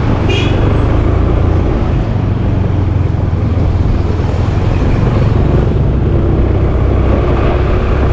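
Small gas-powered automatic scooter being ridden through town traffic: steady engine and road noise, with other vehicles around.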